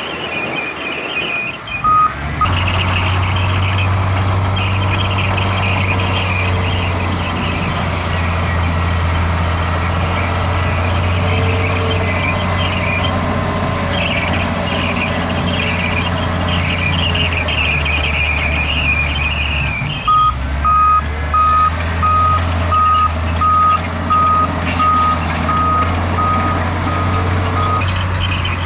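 Heavy earthmoving machine's diesel engine running steadily under load, louder from about two seconds in, with a high metallic squeal and clatter throughout. From about twenty seconds in, a backup alarm beeps about a dozen times at an even pace.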